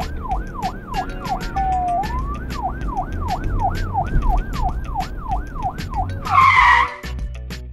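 Police siren sweeping up and down about three times a second, broken by a couple of longer falling tones, over background music with a steady beat. The siren stops a little over six seconds in, followed by a brief noisy burst.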